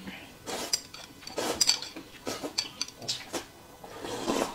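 Mealtime table sounds: a spoon clinking against a glass cup and chopsticks on a ceramic bowl, together with short slurps of noodles, coming in quick separate bursts about once a second.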